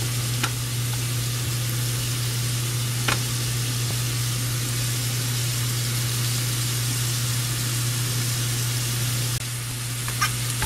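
Shrimp and diced vegetables sizzling steadily in hot oil in a stainless steel pan, over a steady low hum. A couple of light clicks of a metal slotted spoon against the pan, and the sizzle drops a little near the end.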